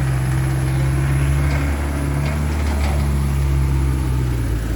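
Jeep engine running steadily, heard from inside the vehicle while riding, its note dipping briefly about two seconds in, with a few faint light knocks.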